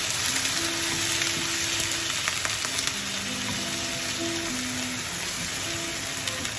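Chicken breast pieces sizzling in a frying pan with a little water, stirred with a wooden spatula, which gives occasional light scraping clicks over the steady hiss.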